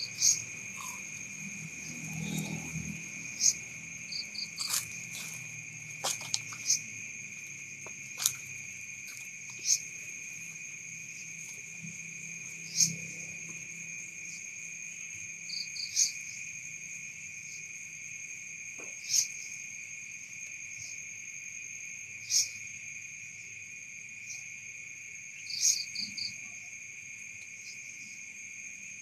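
Night insects: a steady high-pitched cricket trill, with a sharper chirp standing out about every three seconds, several of them followed by a quick run of three short pulses.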